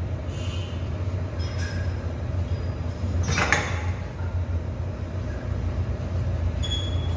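Steady low hum of gym room noise with metal weight plates clinking on a plate-loaded shoulder press machine. The loudest clank comes about halfway through, as the handles are let down at the end of the set.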